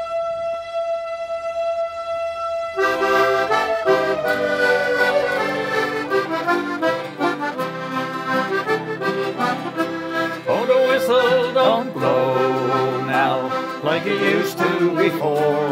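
A single steady held tone with a bright, overtone-rich sound, then a button accordion and acoustic guitars come in together about three seconds in, playing a traditional Newfoundland folk intro. As the band enters, the held tone slowly slides down in pitch and fades under the accordion.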